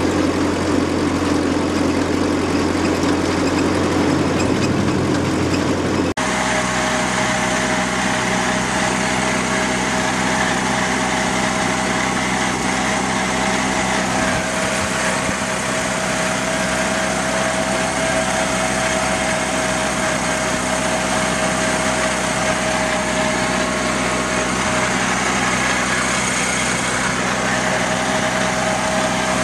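Ford N-series tractor's four-cylinder flathead engine running steadily under way, heard from the driver's seat. About six seconds in the sound changes abruptly, and from then on a steady high whine runs over the engine, dropping out briefly near the end.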